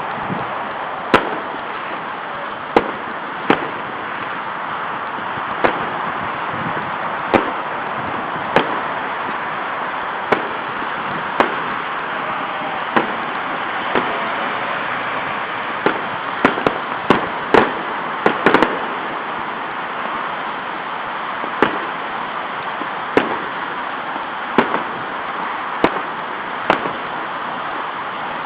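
Fireworks going off in sharp, irregular bangs, with a quick run of several close together past the middle, over a steady background hiss.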